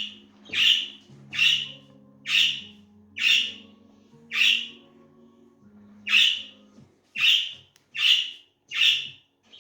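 Pet budgerigar giving a series of short harsh squawking calls, about nine of them, roughly one a second with a brief pause near the middle.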